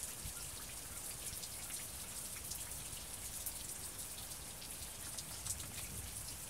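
Steady rain falling, a constant hiss with many scattered sharp drop ticks.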